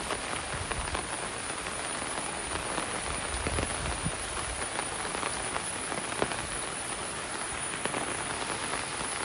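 Steady rain falling, with many close drop hits ticking through the hiss.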